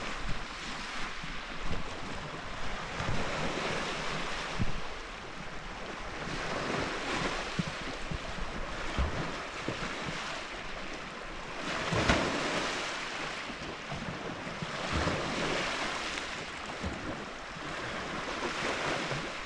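Lake Michigan surf washing onto the beach, a rush that swells and fades every few seconds, with wind buffeting the microphone in short low thumps.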